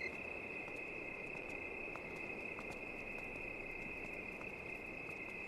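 Crickets trilling steadily and faintly as a night ambience, one continuous high-pitched trill over a soft background hiss.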